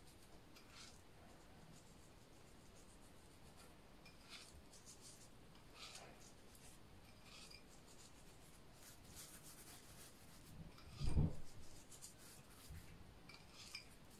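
Fingers rubbing a dry salt, sugar and spice mix into raw mackerel fillets on a wooden cutting board: faint, scattered gritty rubbing and scratching, with one dull thump about eleven seconds in.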